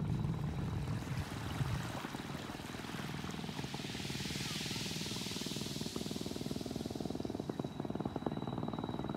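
An engine running steadily with a fast, even pulse. A soft rush of water swells and fades in the middle.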